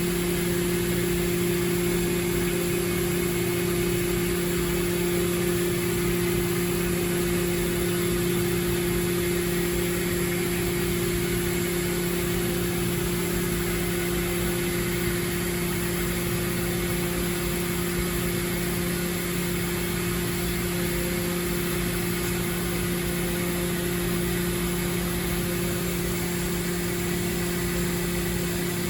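Mori Seiki NT1000 CNC multi-tasking lathe running: a steady two-note machine hum over an even hiss, unchanging throughout.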